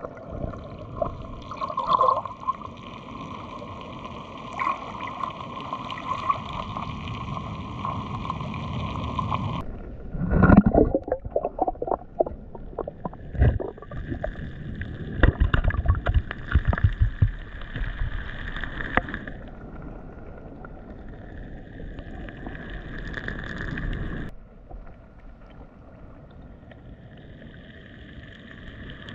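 Muffled water sloshing and gurgling heard from a camera held underwater in a shallow rock pool, with a faint steady hum. A run of knocks and splashes comes between about 10 and 19 seconds in, and the sound changes abruptly twice.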